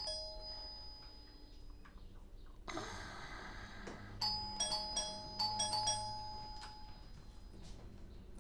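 Two-tone electric doorbell chime rung once with a falling ding-dong that rings on and fades, then pressed again and again in quick succession, about eight strikes, as a visitor keeps ringing. A short rustling noise comes between the two.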